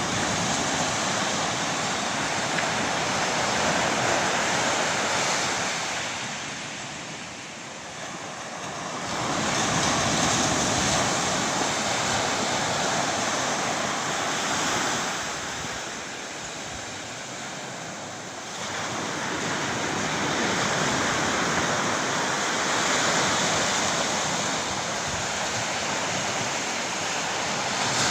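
Surf rushing steadily, swelling and easing as the waves come in, with two quieter spells, about a quarter and again about two-thirds of the way through.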